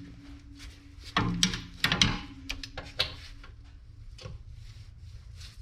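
A wrench clanking and knocking on a rusted 14 mm brake caliper bracket bolt, with several sharp metal knocks in the first couple of seconds and fewer after.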